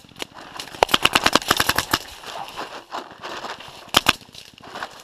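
Paintball markers firing rapid strings of shots: a dense run of sharp pops for about a second and a half, scattered pops after it, and a second short burst near the end.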